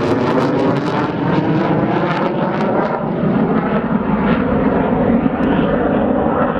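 Saab JAS 39 Gripen's single Volvo RM12 afterburning turbofan passing and flying away: loud jet noise whose high hiss fades out about a second in, leaving a steady low rumble.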